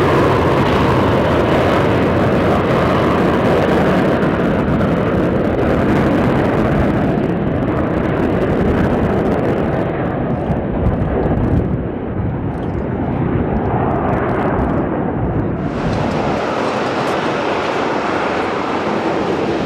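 Loud, steady jet engine noise from a Boeing 737-200's Pratt & Whitney JT8D low-bypass turbofans at takeoff power as it rolls down the runway and lifts off. About three-quarters of the way through, it switches abruptly to the steady engine noise of a Boeing 737-800 taxiing.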